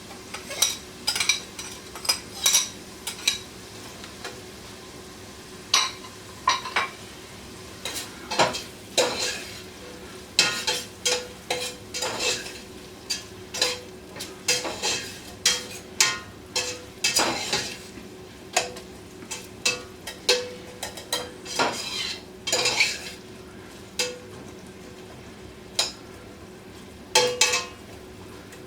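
A spoon stirring sautéing vegetables in a pot, clicking and scraping against the metal in short, irregular strokes, over a faint steady sizzle.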